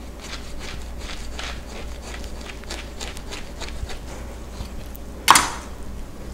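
Kitchen knife cutting and scraping through jackfruit flesh and fibrous husk: a run of soft, irregular slicing and scraping sounds, with one sharp clack about five seconds in.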